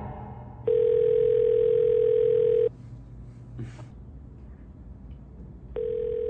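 Phone ringing with a plain, steady electronic tone: one ring of about two seconds starting about a second in, then a second ring about three seconds later that stops after under a second.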